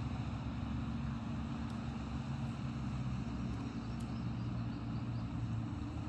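An engine idling steadily: a low, even hum that holds one speed throughout.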